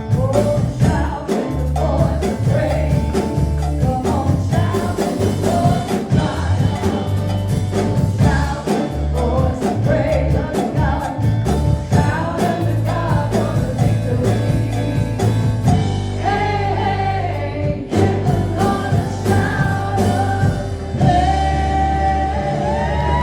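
Gospel song with a lead vocal over a band with percussion. Near the end it goes into a long held sung note that rises in pitch.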